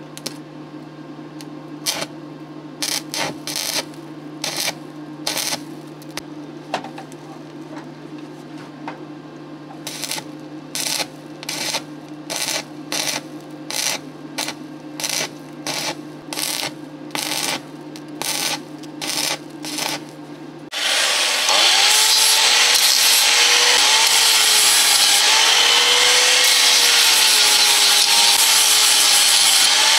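Stick welding: a steady low hum under short bursts of arc crackle, about one a second, as a steel part is tack-welded. About 21 seconds in, a handheld angle grinder starts grinding steel, loud and continuous, its pitch wavering as the disc bites.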